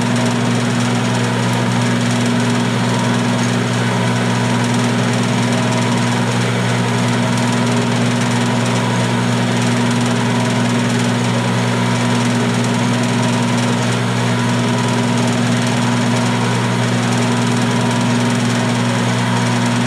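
Milling machine running steadily with an edge finder in the spindle: an even motor hum with a faint higher whine.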